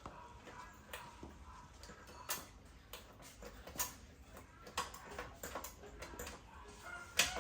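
Irregular light clicks and knocks, a few scattered over several seconds, with the sharpest knock near the end.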